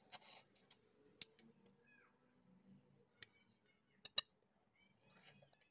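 Serrated knife cutting through a baked pie crust: faint crackling of the pastry, with a few sharp clicks of the blade knocking, the loudest two close together about four seconds in.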